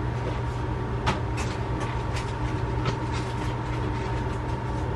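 Steady low background hum with scattered faint clicks and rustles of small items being handled.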